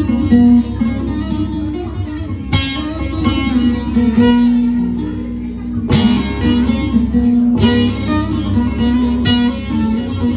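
Instrumental break of a Turkish song between sung verses: plucked string instruments play a melody over a sustained bass, with sharp strummed chords every couple of seconds.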